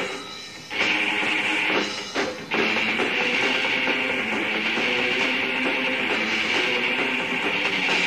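Death/doom metal band playing in a rehearsal-room recording: distorted electric guitars and drums. The music breaks off briefly twice in the first couple of seconds, then settles into a steady, heavy riff.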